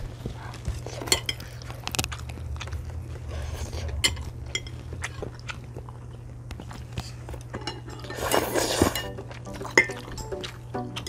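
Eating at the table: chopsticks and utensils clicking and clinking against ceramic bowls and plates, with chewing and biting between, over a low steady hum. A louder, denser burst of noise comes about eight seconds in.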